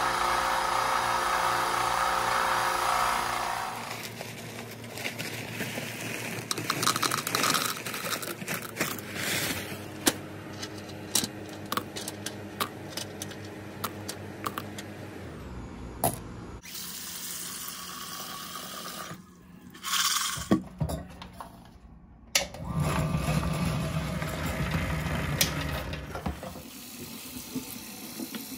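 A bench belt and disc sander runs steadily for the first few seconds. Then come scattered clicks and rattles of small tumbling media handled in a plastic cup. Near the end, tap water rushes into a container in a sink.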